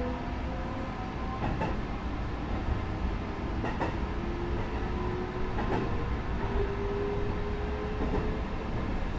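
Sanyo Electric Railway 6000 series electric train running, heard from inside the front cab. A steady rumble carries wheel clicks over rail joints about every two seconds, and a thin whine slowly rises in pitch.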